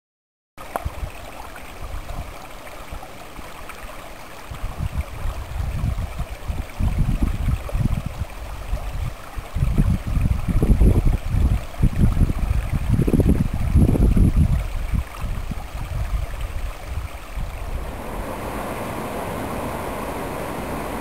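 Stream water running steadily, starting about half a second in. Through the middle, loud low rumbling buffets, the kind wind makes on a microphone, come and go over the water before it settles into an even rush near the end.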